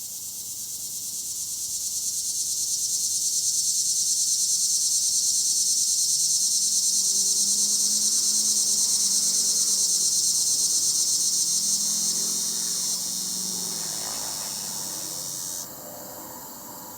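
Loud, high insect buzz, cicada-like: it swells over the first couple of seconds, holds steady with a fast pulsing, then cuts off abruptly near the end, leaving a fainter insect chorus behind.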